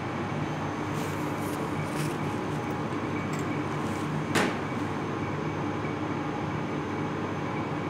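Steady mechanical drone of a commercial kitchen's ventilation, with a low hum, under a few faint clicks and one sharp knock about four and a half seconds in.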